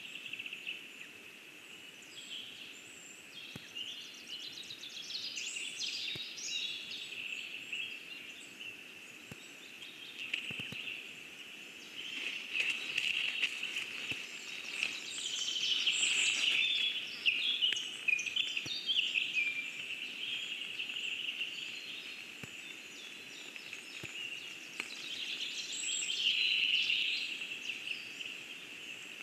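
Songbirds singing in the surrounding forest: a dense mix of chirps and trills that swells louder around the middle and again near the end.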